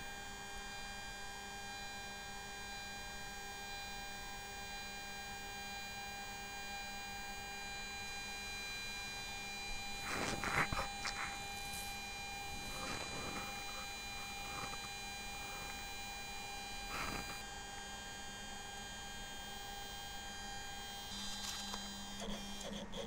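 Stepper motor driving a linear stage at a steady slow feed during a homing move, giving a faint, steady whine of several pitches. A few brief knocks come partway through, and the whine stops near the end.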